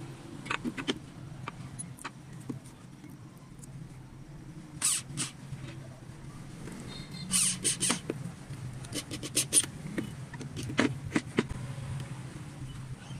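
Scattered sharp clicks and clinks of a metal coat hook and its screws being handled and set against a wooden board, in small clusters, over a steady low hum.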